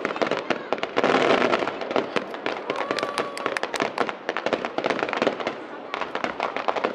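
Aerial fireworks going off in rapid succession: a dense stream of bangs and crackles, thickest about a second in.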